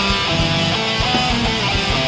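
Background rock music: a guitar plays a melody of held notes over drums.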